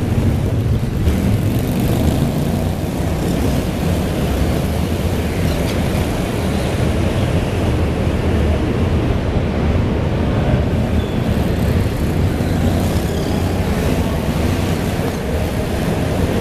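Several slingshot race cars' engines running together as the field circles the track, a steady loud drone filling an indoor arena.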